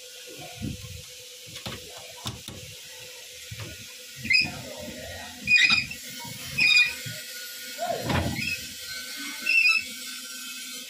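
Clicks and knocks from a stainless hatch latch and lid on a fibreglass boat, then four short high squeaks and a thump while the boat's steering wheel is turned by hand.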